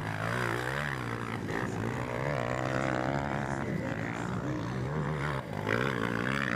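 230 cc motocross bike engine revving hard on the dirt track, its pitch climbing and dropping with throttle and gear changes. A louder burst of revving comes near the end.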